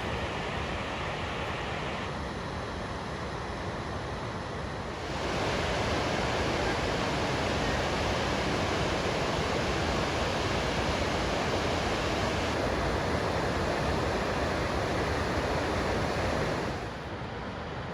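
Waterfall, a steady rush of falling water. It jumps louder about five seconds in and drops back abruptly near the end.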